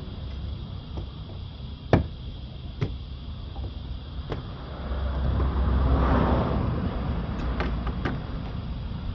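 Sharp clicks and knocks from handling a stripped Audi A6 C6 rear door, with its trim panel removed. The loudest click comes about two seconds in, and a few more come near the end. A swell of rumbling noise rises in the middle.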